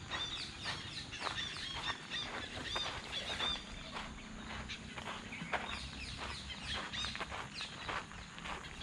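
Small birds calling in short, high, arched chirps, repeated many times over footsteps on a dirt road at about two steps a second.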